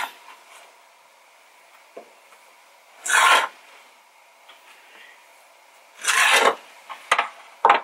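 Serrated knife sawing through soft bread dough and rasping across a plastic cutting board, in separate strokes: one about three seconds in, another about six seconds in, then two short scrapes near the end.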